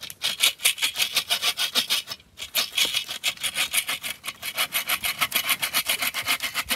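Folding bow saw cutting through a dead branch for firewood, in fast back-and-forth strokes with a brief pause a little over two seconds in.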